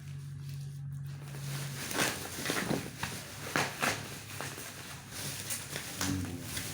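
Gift-box packaging being handled and opened by hand: a run of sharp crackling, scraping rustles from about two seconds in, after a low steady hum at the start.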